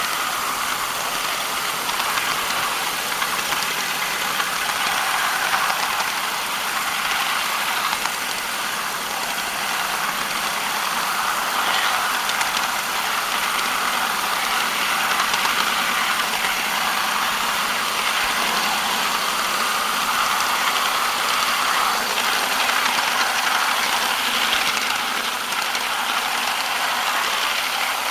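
Ride-on live-steam miniature locomotive and its train rolling steadily along the track, a continuous running noise of wheels on rail and machinery with a light rattle.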